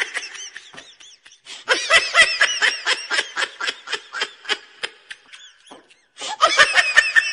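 High-pitched laughter in three bouts, each a quick run of 'ha' pulses at about four or five a second, with short pauses between the bouts.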